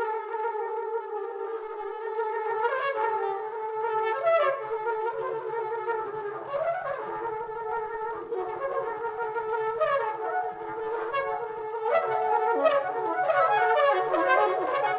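Flugelhorn and soprano saxophone improvising together in free contemporary music: a long held note runs on while quick swooping runs rise and fall over it. A low buzzing drone enters about two and a half seconds in, and the playing grows denser and louder near the end.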